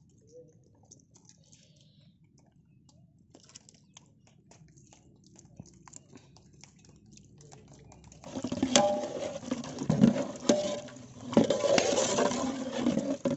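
Faint soft taps as yogurt is spooned onto chicken in a large metal pot. After about eight seconds, loud wet sloshing and scraping, with sharp clicks, as the chicken and its gravy are mixed in the pot.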